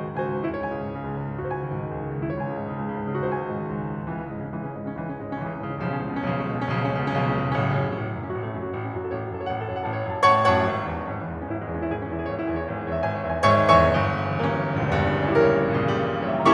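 Background piano music, slow and sustained, with a few louder chords struck in the second half.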